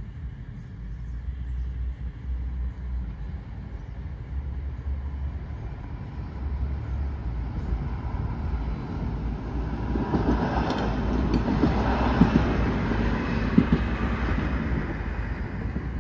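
Train approaching a level crossing, its rumble growing steadily louder and loudest about two-thirds of the way in, with a few sharp clicks. Wind flutters on the microphone throughout.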